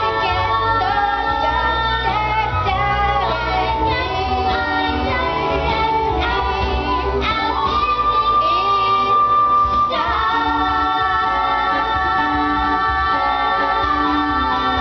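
Young voices singing a musical-theatre number with accompaniment. A long high note is held from about halfway, and about ten seconds in the voices and accompaniment come in together on a sustained chord.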